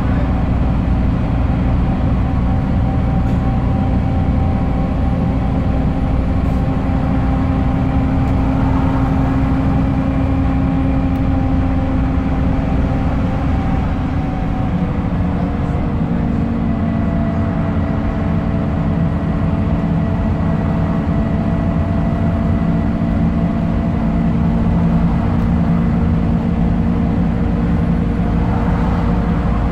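Scania K270UB bus's five-cylinder diesel engine and drivetrain running at steady road speed, heard inside the cabin from the rear seats, with road rumble. Its whine drops in pitch about halfway through, then holds steady.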